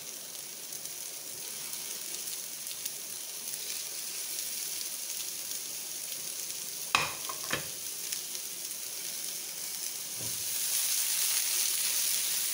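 Minced-meat gola kebabs sizzling steadily as they shallow-fry in a little oil in a non-stick frying pan. About seven seconds in come two sharp knocks half a second apart. Near the end the sizzle grows louder as the pan is shaken.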